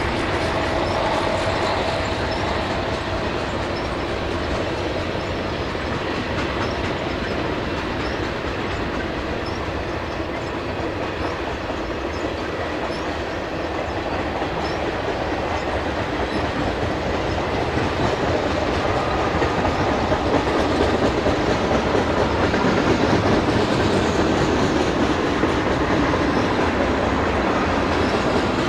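Freight train of tank cars rolling past, the steel wheels running on the rails in a steady, continuous noise that grows somewhat louder about two-thirds of the way through.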